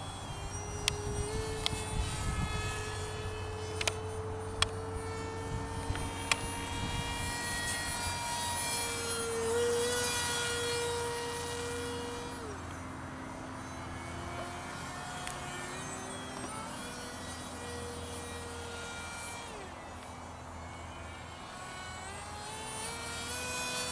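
Propeller and motor of an RC Boeing ALCM parkjet flying overhead: a steady buzzing whine that shifts in pitch as the throttle changes and drops in pitch as the model passes, about halfway through and again near the end. A few sharp clicks in the first seven seconds.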